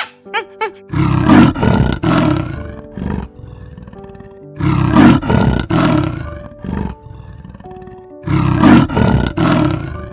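Leopard giving harsh rasping roars in three bouts of two or three strokes each, about three and a half seconds apart, over background music.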